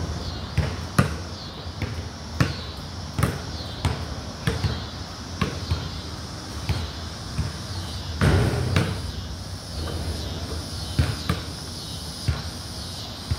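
Basketball being dribbled on a concrete court, sharp bounces coming every half second to a second, with a longer, louder noise about eight seconds in.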